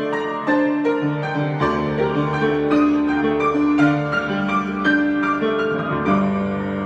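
Solo piano improvisation: a melody of struck notes that ring on over lower accompanying notes, with a deeper bass line coming in about one and a half seconds in.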